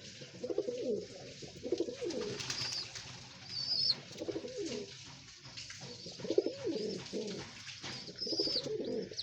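Pigeons cooing in repeated low phrases, with a few short high chirps in between.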